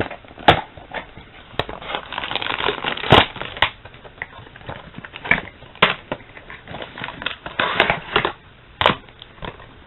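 Toy box packaging being handled and opened: crinkling and crackling with a scatter of sharp clicks and snaps.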